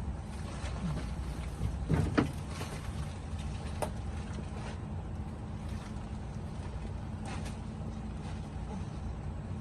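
Kenworth truck's diesel engine idling with a steady low rumble, running smoothly after an oil change. A short louder noise comes about two seconds in.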